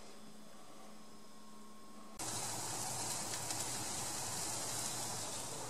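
Steady background hum and hiss with no distinct event; about two seconds in it cuts abruptly to a louder, even hiss.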